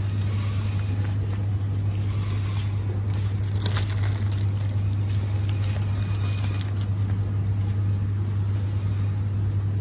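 A steady low hum, with a few faint clicks about four seconds in.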